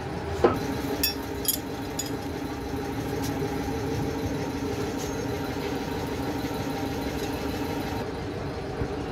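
An engine running steadily nearby, a continuous hum. A few sharp metallic clinks ring out in the first two seconds.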